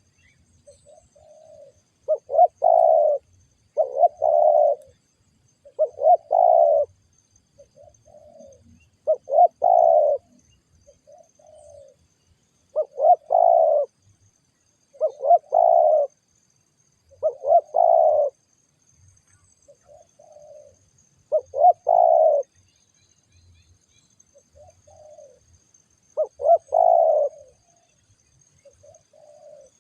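Spotted doves cooing: loud, low coo phrases repeat about every two seconds, with fainter, shorter coos in the gaps between them.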